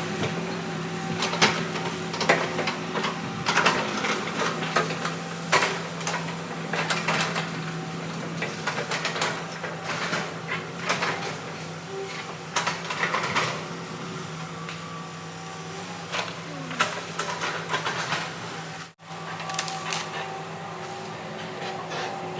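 Heavy earthmoving machine's diesel engine running at a steady hum, with frequent irregular clanks and knocks. The sound drops out briefly near the end.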